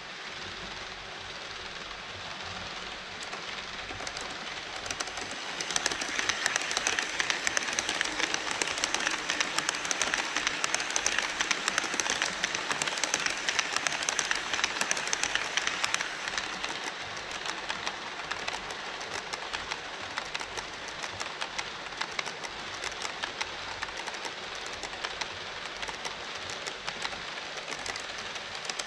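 HO-scale model trains rolling across a model truss bridge: a fast, dense clatter of small metal wheels over the track. It builds about four seconds in, is loudest through the middle, then eases a little.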